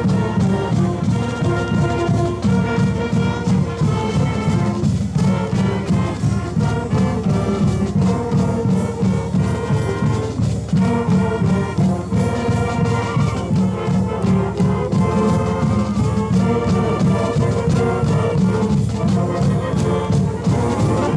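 High school marching band playing stand music: brass melody over a steady drum beat.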